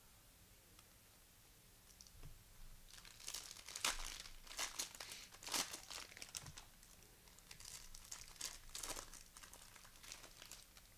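Cellophane wrapper of a basketball card cello pack being torn open and crinkled by hand: a run of crackly rustles starting about two seconds in, loudest around the middle, then lighter crinkling.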